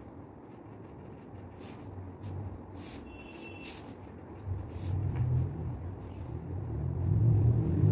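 A low rumble that swells louder in the last few seconds, with a few light clicks in the first half.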